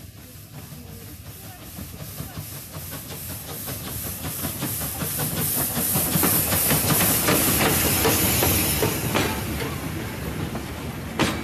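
Steam locomotive 431.032 'Ventilovka' rolling into a station and passing close by: steam hiss and the clank of the running gear grow louder to a peak as the engine goes past. Then the coaches roll by, wheels clicking over the rail joints, with a sharp knock near the end.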